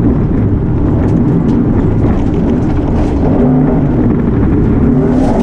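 Ford Ka rally car heard from inside the cabin at speed on a gravel stage: the engine runs hard under load over a steady noise of tyres on gravel.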